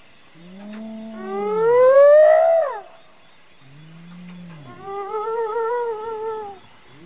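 Spotted hyena whooping: a low call leads into a loud, long whoop that slides upward in pitch and drops at the end. About four seconds in come another low call and then a wavering call.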